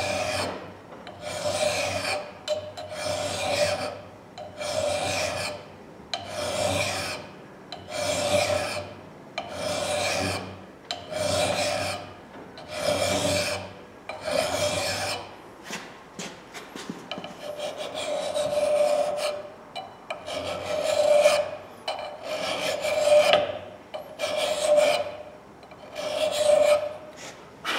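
Hand file rasping across the forged steel bit of a hatchet, sharpening the edge in slow, even push strokes about once every one and a half seconds, each with a slight metallic ring. The strokes pause briefly about halfway through, then carry on.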